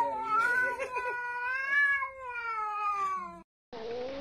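White long-haired cat giving a long, drawn-out meow that wavers up and down in pitch, in two or three stretches, cut off abruptly about three and a half seconds in. After a brief gap, a second cat's call begins near the end.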